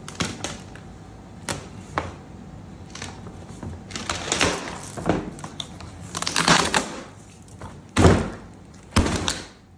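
Epoxy-and-wood panel being pried loose and peeled off a plastic pour board: scattered sharp clicks and crackles, two stretches of scraping in the middle, then two heavy thumps near the end as the panel comes up off the board.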